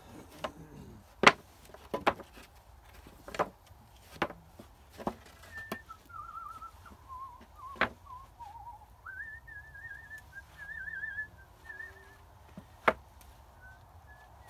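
Sharp knocks at irregular intervals, several in the first few seconds and a single loud one near the end. In between, from about six seconds in, a warbling whistle wavers up and down for several seconds.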